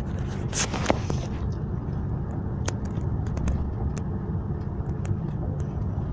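Steady low rumble of a car driving, heard inside the cabin. Rustling and scattered clicks of handling noise from the device rubbing against clothing and a seatbelt, loudest within the first second.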